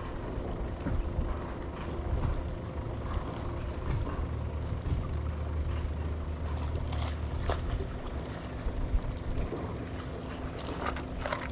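Small boat's outboard motor running steadily at low speed, its low hum easing off about eight seconds in.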